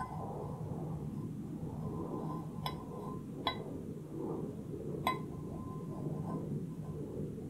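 Three light clinks, each with a short ring, about two and a half, three and a half and five seconds in: the lip of a white enamel saucepan tapping the stainless cake ring while clear jelly is poured from it.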